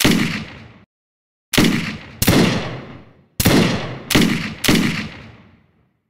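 Six gunshot sound effects, each a sharp crack with a long echoing fade: one at the start, two about a second and a half in and a little over two seconds in, then three in quicker succession from about three and a half seconds in.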